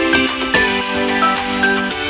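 Instrumental background music, with pitched notes changing every fraction of a second.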